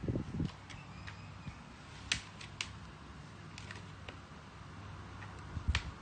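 Cats playing against a plastic basket on a hard floor: a few light, sharp clicks and taps, with brief low rustling at the start and again near the end. No meowing.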